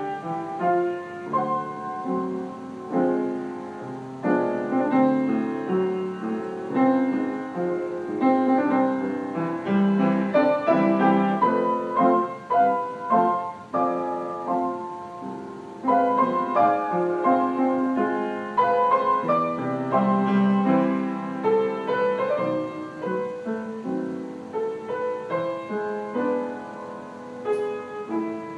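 Grand piano played solo: a melody over full chords, the loudness swelling and falling from phrase to phrase.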